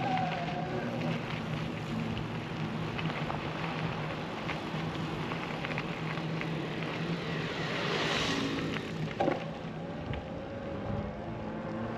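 A vehicle passing close by: its noise swells to a peak about eight seconds in and fades away, over a steady background hum.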